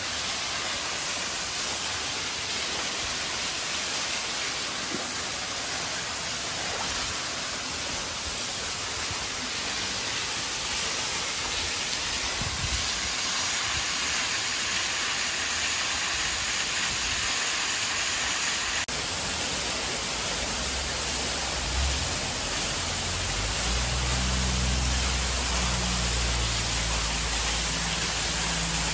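Artificial waterfall pouring into a hot spring pool: a steady rush of falling water, with a deeper low rumble joining in about two-thirds of the way through.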